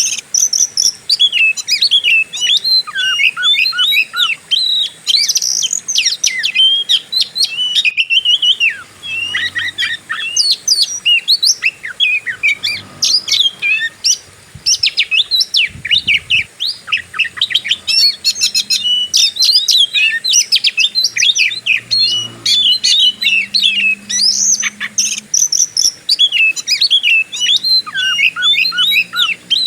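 Oriental magpie-robin singing a fast, unbroken run of sharp chirps, sweeps and whistles in the aggressive 'fighting style' song.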